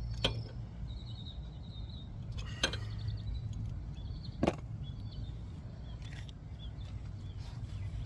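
Three sharp knocks, about two seconds apart, over a low steady hum, with faint high chirping in between.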